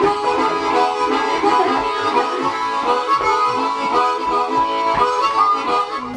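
Harmonica played solo: a fast run of changing notes with nothing playing beneath it.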